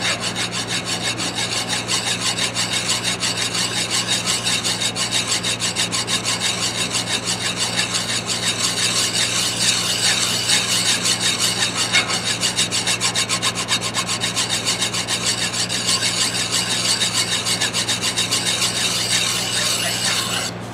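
Hand file rasping back and forth over the steel neck of a 22 oz Bostitch claw hammer in quick, even strokes, filing out dents and nicks. The filing stops just before the end.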